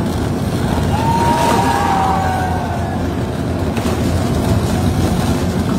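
Steady low rumble of heavy machinery, taken to be the tunnel boring machine grinding through the rock face just before breakthrough, with water jets spraying over it. Faint sliding whistle-like tones rise above it about a second in.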